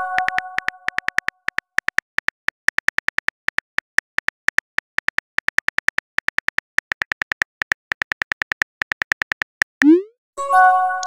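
Simulated phone-keyboard typing clicks from a texting app, a quick run of several taps a second. A chime is fading out as a message lands at the start. Near the end a short rising swoosh marks a message being sent, and a second chime follows.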